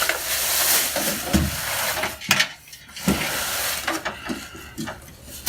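Rustling and crinkling of the packaging as a computer case is unpacked, with a sharp knock about two seconds in.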